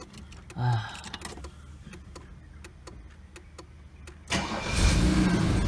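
A few sharp clicks, then about four and a half seconds in the Mercedes-Benz 280SE's twin-cam straight-six cranks and fires, starting up and running.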